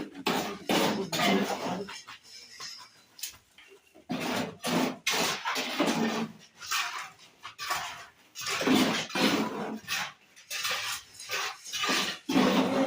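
Metal trowel scraping and spreading cement plaster in a series of strokes.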